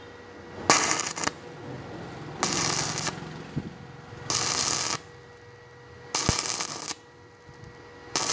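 Stick-welding arc crackling and sputtering in five short bursts of about half a second each, roughly every two seconds, as the electrode's arc is struck and broken again and again along the joint.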